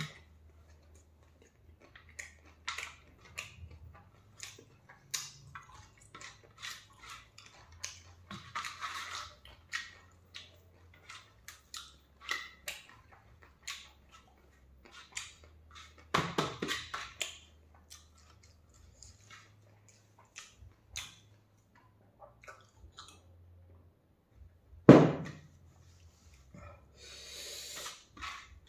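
Someone eating rice by hand from a stainless steel plate: fingers scraping and gathering rice on the metal, with chewing and mouth clicks throughout. Two louder sounds stand out, about 16 and 25 seconds in.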